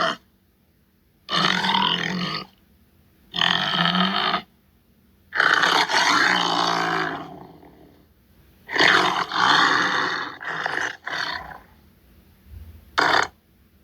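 Tiger giving a series of grunting roars, about five calls of a second or two each with silent gaps between them. The last call near the end is short.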